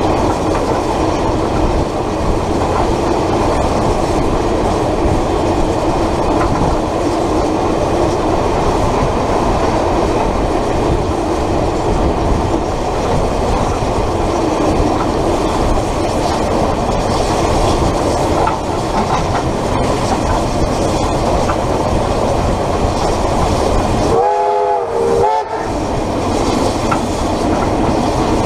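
Steady running noise of a train on the move, heard from a banker locomotive coupled behind the tender of steam locomotive Ab 608. Near the end a chord-like blast of several tones sounds for about a second and a half.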